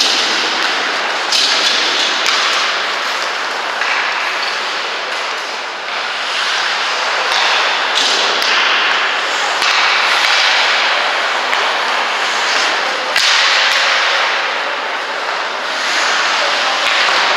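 Ice hockey play: skate blades scraping and carving across the ice in swelling swishes, with a few sharp clacks of sticks and puck.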